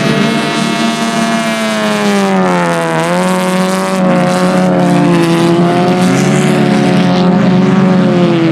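IMCA Sport Compact race cars' four-cylinder engines running at racing speed. The main engine note drops about three seconds in as the throttle is lifted for a corner, then climbs back up under power.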